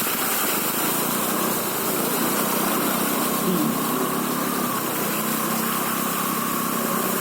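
A small vehicle's engine running steadily as it drives through flood water, with a constant rushing noise.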